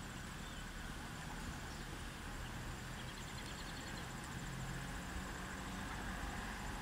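Steady outdoor background noise with a low hum, and a faint high trill of short repeated notes about three seconds in.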